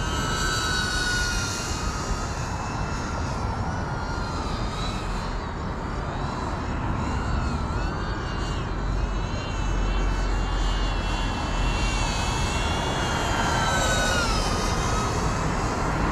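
FPV drone motors and propellers (GEPRC Cinelog 35) whining, the pitch rising and falling as the throttle changes during flight. A heavy low rumble of wind on the microphone runs underneath.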